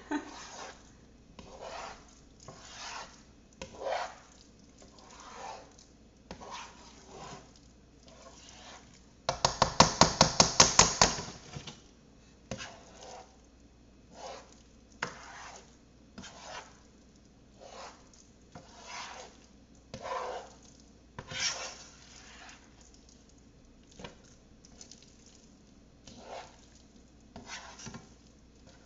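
A spoon stirring and scraping thick cheesy risotto in a pan, one stroke about every second, with a louder run of quick clattering strokes against the pan about ten seconds in.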